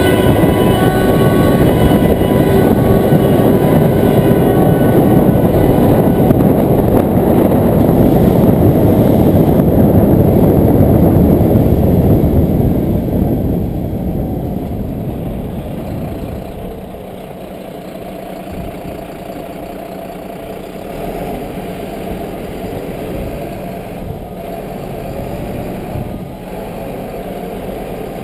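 Fire tender's diesel engine and tyre noise heard from on board, loud and steady while driving through a road tunnel. About 13 seconds in it drops to a much quieter, steadier engine running as the truck slows to a crawl.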